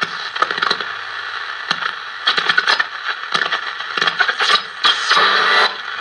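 National Panasonic 441B transistor radio hissing and crackling with static as its tuning knob is turned between stations. The noise comes and goes in short bursts, with a louder swell about five seconds in.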